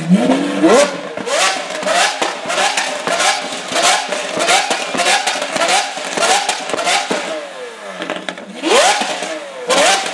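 Lamborghini Aventador's V12 with a Novitec exhaust, revved hard in a quick string of throttle blips, about one and a half a second, with sharp cracks from the exhaust. After a brief lull it gives a bigger rev, and another near the end.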